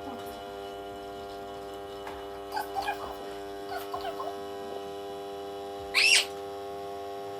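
Ninja Luxe Café espresso machine running with a steady hum while it brews. About six seconds in there is a short, loud, high squeal that rises and falls.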